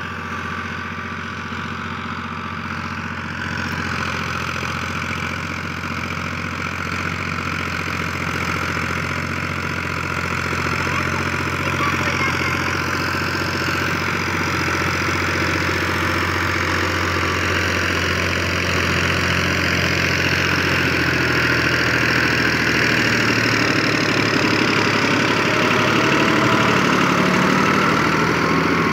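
New Holland Al-Ghazi tractor's diesel engine running steadily under load while driving a rotavator through dry soil, growing gradually louder as the tractor comes close.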